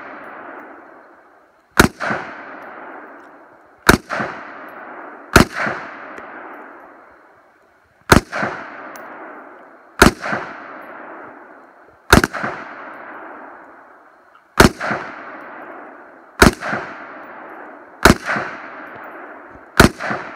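Ruger AR-556 5.56 mm semi-automatic rifle fired ten times in slow, single aimed shots, about one every two seconds. Each sharp crack is followed by a quick second, softer report and a long trailing echo.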